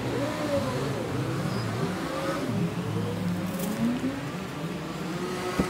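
Two tomcats yowling at each other in a fight standoff: long, wavering cries that rise and fall in pitch and overlap. The cries cut off abruptly near the end.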